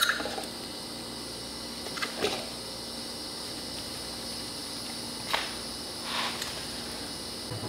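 A sharp click at the start, then a few small, short drips of beer falling from a Perlick stainless steel faucet into a stainless steel tumbler held under the spout, over a steady hiss. It is the shut faucet still dripping.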